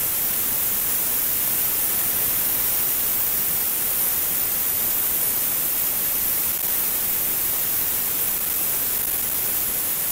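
Tenya CUT 50 plasma cutter cutting aluminium sheet: a steady hiss from the arc and its air jet.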